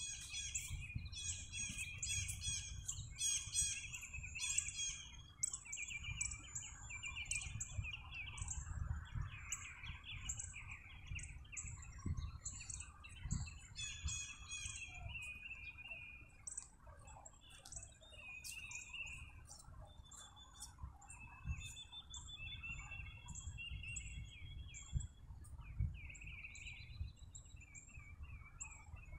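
Many small birds chirping and twittering, the calls overlapping thickly at first and thinning out over the second half, over a steady low rumble.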